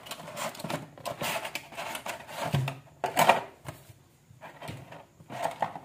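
Cardboard and plastic packaging being handled as an earphone box is opened and its clear plastic tray slid out: irregular rustling, scraping and small clicks, the loudest scrape about three seconds in.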